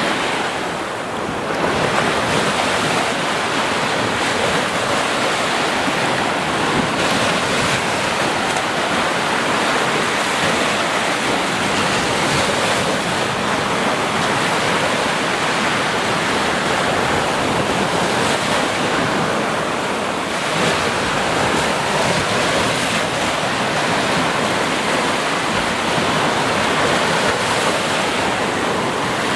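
Steady rush of flowing water, an even, unbroken noise across low and high pitches.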